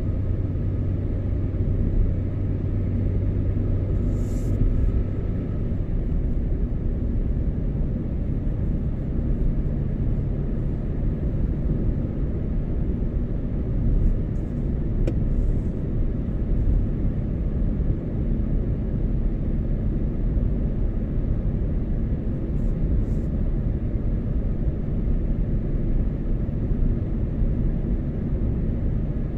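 Car driving at a steady pace: a continuous low rumble of engine and road noise. A low hum in the engine note fades out about four to five seconds in, and a few faint ticks come through now and then.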